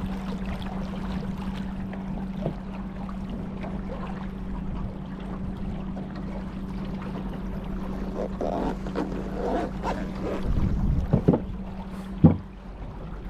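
Water splashing and lapping against a small boat, with wind on the microphone and a steady low hum underneath. A sharp knock comes near the end.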